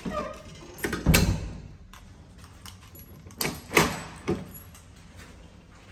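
Apartment door handle and latch being worked as a wooden door is opened and pulled shut: a loud clunk about a second in, then three sharp latch clicks and knocks a little after three and a half seconds and just past four seconds.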